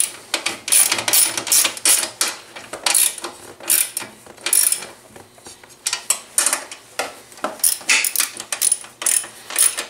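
Hand socket ratchet clicking in quick runs of clicks as it is swung back and forth, tightening 10 mm bolts on a radiator guard, with a short lull about halfway through before the clicking resumes.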